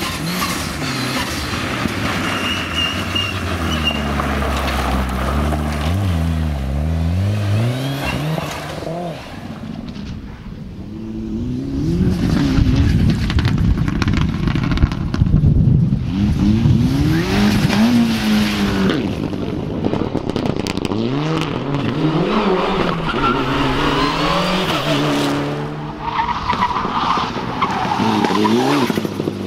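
Several Mitsubishi Lancer Evolution rally cars in turn, their turbocharged four-cylinder engines revving up and dropping again and again through the gear changes as they are driven hard, with tyre noise on loose surface and asphalt.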